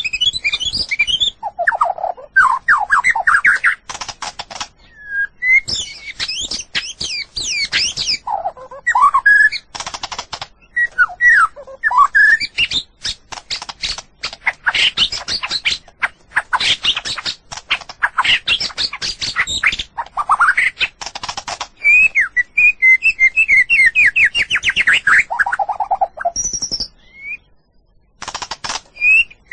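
White-rumped shama (murai batu) singing a long, varied song of rapid whistled phrases, quick trills and dry rattling notes, with a short pause near the end.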